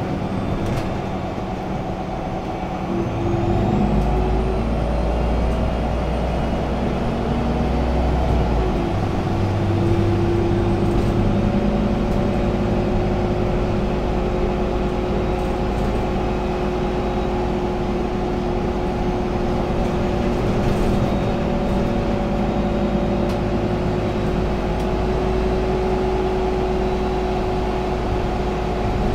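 Irisbus Agora L articulated city bus heard from inside its cabin: the engine and drivetrain run with a steady low rumble and drone. The note shifts about 3 seconds in and again about 9 seconds in.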